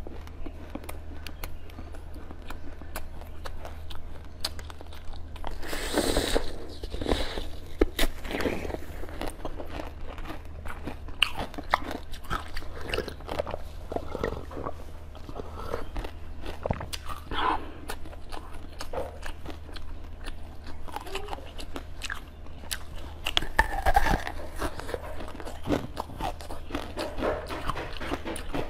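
Close-miked eating: biting into and chewing a soft blue dumpling-shaped food, with many small wet mouth clicks and a few louder bites, over a steady low hum.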